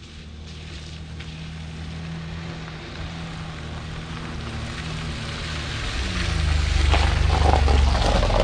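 A vehicle's engine running with a low drone and a rushing noise, growing steadily louder as it draws near and loudest near the end.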